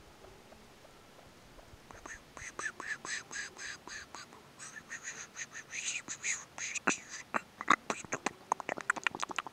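Ruffed grouse giving a rapid run of short, sharp 'putt' notes, the call it makes when alarmed or agitated. The run starts about two seconds in and gets faster and louder near the end.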